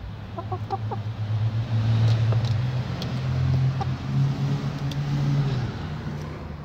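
A motor vehicle's engine running close by: a low drone that swells and fades and shifts in pitch. Over it, a few short chicken clucks about half a second in and light scattered taps.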